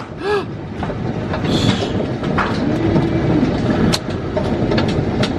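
Heavy hail pelting down in a dense, steady clatter, with a few sharp cracks of single hailstones striking close by, the loudest about four seconds in.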